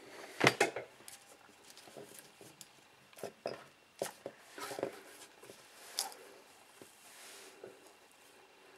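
Scattered small clicks and taps from handling a soldering iron and the drone's wires and parts at a bench, about half a dozen. The loudest is a cluster about half a second in.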